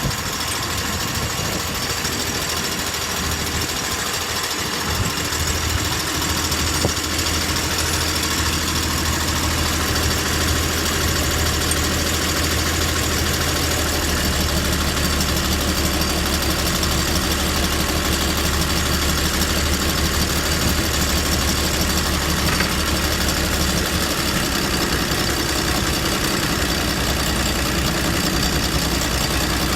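A boat's 4.2-litre turbodiesel engine running steadily, with its injection pump freshly repaired and the turbo working well. It grows slightly louder and deeper about five seconds in and again midway.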